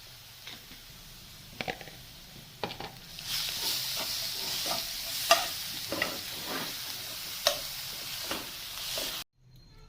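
Metal spoon stirring and knocking in a kadhai of hot ghee with ground ginger, black pepper, cloves and jaggery. The sizzling grows much louder about three seconds in, with repeated knocks of the spoon against the pan, and cuts off suddenly near the end.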